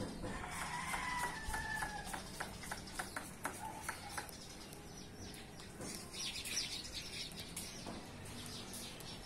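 Bird calls: one drawn-out call lasting about a second and a half near the start, falling slightly at the end, then higher chirps around two-thirds of the way through. Scattered short clicks run through the first half.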